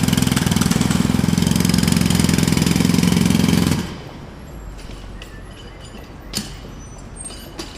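Jackhammer hammering rapidly, then stopping abruptly about halfway through, leaving a much quieter background with a few sharp clinks.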